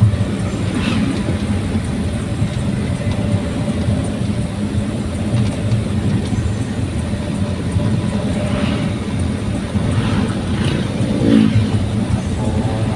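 Daihatsu Gran Max pickup on the road, its engine and exhaust droning steadily, with a brief rise in pitch about eleven seconds in.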